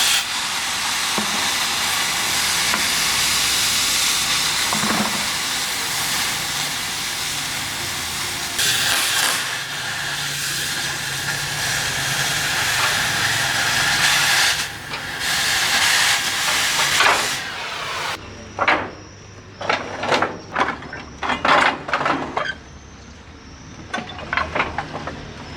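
Oxy-fuel cutting torch hissing steadily on steel; the hiss cuts off suddenly about eighteen seconds in. It is followed by a run of sharp knocks and clinks.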